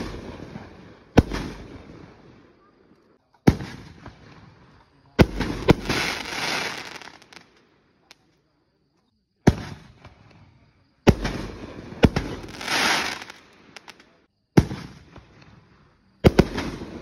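7-inch consumer canister firework shells launching and bursting overhead: a string of about nine sharp booms at irregular intervals, each fading out slowly. After the booms about five and eleven seconds in comes a longer hiss.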